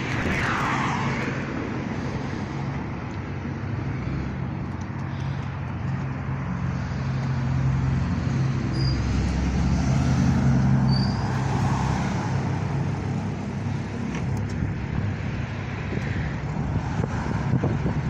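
Road traffic: a steady low engine hum under the noise of cars passing, one passing with a falling pitch in the first second.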